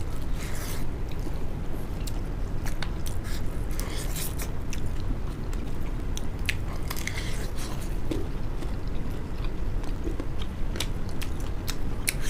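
Close-up chewing and biting of duck meat and rice eaten by hand, with scattered small crunches and clicks, over a steady low hum.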